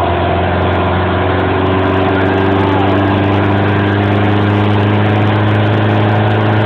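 Cummins 4BT 3.9-litre four-cylinder turbo-diesel in a 1995 Ford Ranger running hard on a chassis dyno, a loud, even diesel drone at a steady engine speed.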